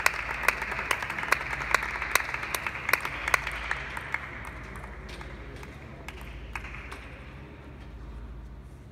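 Spectators applauding a won point in a table tennis match, with loud claps in a steady rhythm of about two and a half a second over the general clapping. The applause dies away about four seconds in, leaving a few scattered clicks in a quieter hall.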